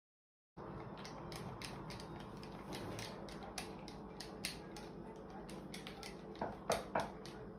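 Faint background noise with irregular sharp clicks and light knocks, a few of them louder near the end; it starts after about half a second of dead silence.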